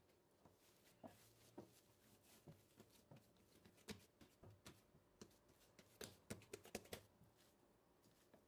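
Faint kitchen handling sounds while preparing pastry dough: an irregular run of light clicks and taps, thickest in the second half.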